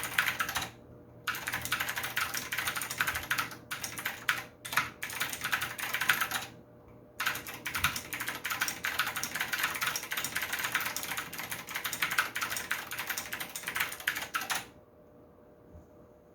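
Fast typing on a Maxtill TRON G510K V2 mechanical keyboard with MAXKEY SA keycaps: dense runs of keystrokes broken by a few short pauses, stopping near the end.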